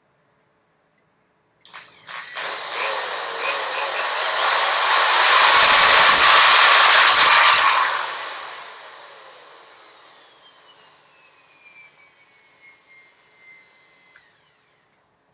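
Electric drill spinning up with a rising whine and running at full speed with a grinding cutting noise, typical of drilling through the tripod's metal brace, then released and winding down with a slowly falling whine over about six seconds.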